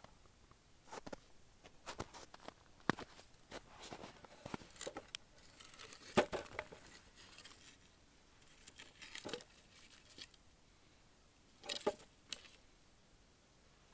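Split firewood pieces being handled and stacked on a small portable grill: scattered faint wooden knocks and clatters, the loudest about six seconds in and another cluster near the end.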